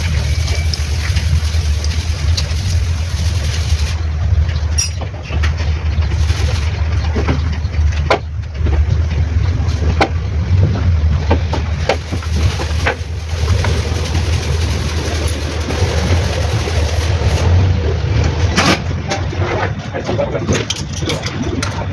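Mitsubishi Pajero's 4M40 four-cylinder turbodiesel engine running steadily with a low rumble and scattered short knocks, the knocking problem it is being overhauled for.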